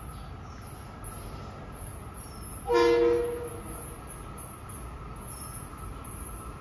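Short single blast of a Metro-North M8 train horn, a chord of several steady notes lasting about half a second, about three seconds in. Insects chirr steadily underneath.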